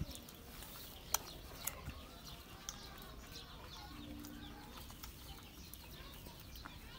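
Small birds chirping, with a few sharp clicks and soft suckling sounds from nursing puppies. A short low tone comes about four seconds in.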